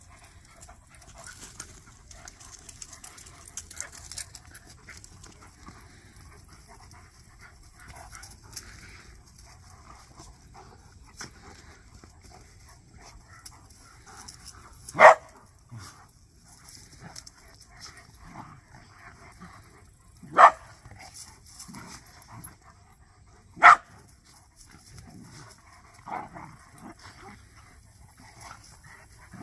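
Dogs play-fighting, panting through most of it, with three sharp, loud barks in the second half, the second coming about five seconds after the first and the third about three seconds after that.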